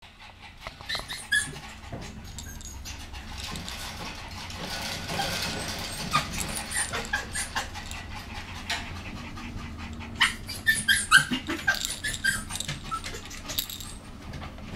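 A young puppy giving short, high whimpers and squeaks, busiest about ten seconds in, amid soft clicks and rustling as it plays with a plush toy.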